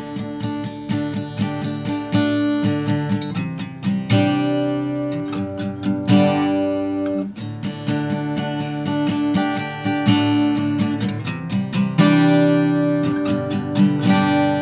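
Background music: acoustic guitar strumming chords, changing chords about every two seconds.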